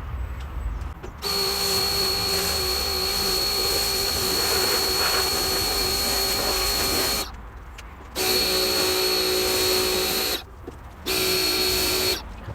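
Electric pressure washer running with a steady high whine and spray hiss, in three bursts that start and stop abruptly as the trigger is pulled and released. The first burst lasts about six seconds, the next two are shorter.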